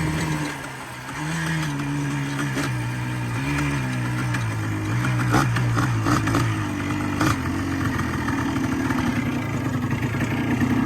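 Yamaha Blaster's 200cc single-cylinder two-stroke engine running just after a kick start, idling with its pitch stepping up and down several times as the throttle is blipped, with a few sharp clicks along the way. The owner calls it purring.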